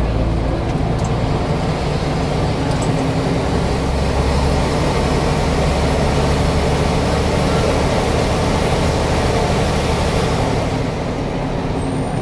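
Interior sound of a Scania N94UD double-decker bus under way: the diesel engine's low drone with road and cabin noise. It grows louder through the middle and eases off a little near the end.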